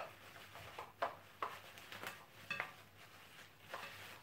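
A handful of faint, sharp clicks and knocks of kitchen utensils being handled, spread over a few seconds.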